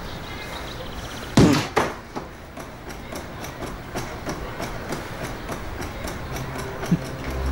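Punches landing on a free-standing punching bag: two hard thuds about a second and a half in, a smaller one just after, then a run of light ticks and one more knock near the end.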